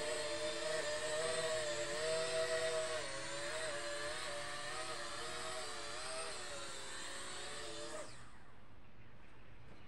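Small electric motors of a toy RC fighter jet whining steadily in flight, the pitch wavering slightly as the throttle shifts, then cutting off about eight seconds in as the jet sets down on the grass.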